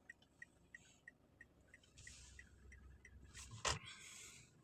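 Car turn-signal indicator ticking about three times a second inside the cabin. Then, as the car pulls forward, a hiss and a brief loud squeak that drops in pitch.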